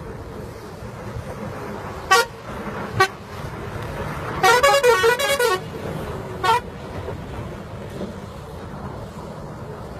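Tourist bus horn sounding: two short toots, then a warbling multi-tone horn phrase about a second long, then one more short toot, over a steady rumble of engine and road noise.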